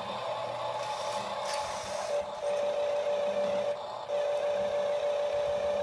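Small electric drive motor and gearbox of a toy RC tractor whining steadily as it strains against a heavy dumbbell load, the whine dropping out briefly twice.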